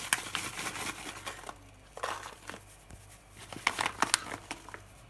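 Paper bag of powdered sugar crinkling as it is tipped and poured into a metal mesh sieve, then a few sharp clicks: one about two seconds in and a quick cluster near four seconds.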